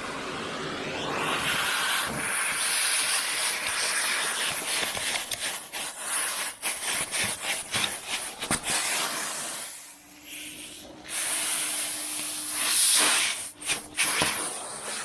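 Vacuum cleaner sucking up dirt and old grease from a lathe, a steady rushing hiss with the nozzle scraping and many short rattling clicks; the hiss dips briefly about ten seconds in.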